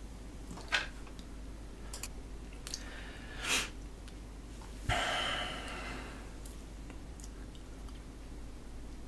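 Low steady hum with a few faint clicks and two short breath-like noises near a desk microphone. The first is brief, about three and a half seconds in; the second starts sharply about five seconds in and fades over about a second.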